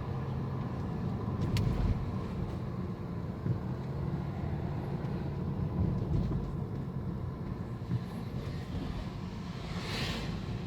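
Cabin noise of a BMW 520d F10 driving at low speed: a steady low engine and road rumble while the steering is swayed left and right. The crackling from the front CV joint is gone after the joint was replaced, so the car is quiet apart from one sharp tick about one and a half seconds in and a brief hiss near the end.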